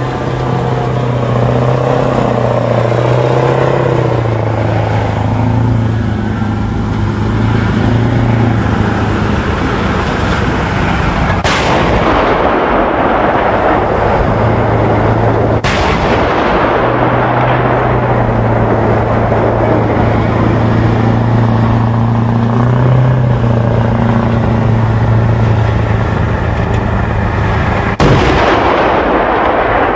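CV9040 tracked combat vehicle driving, its engine hum and track noise steady, broken by three sharp bangs, at about twelve, sixteen and twenty-eight seconds in, from its Bofors 40mm L70 gun firing practice rounds on the move.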